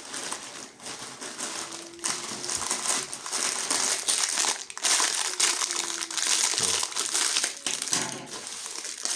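Crinkly packaging being crumpled and unwrapped by hand, a continuous crackling rustle that grows louder about two seconds in.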